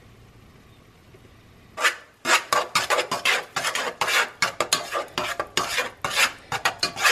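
A spoon stirring and scraping around a metal pot of melting cream cheese and butter, in quick repeated strokes, several a second. The stirring starts about two seconds in.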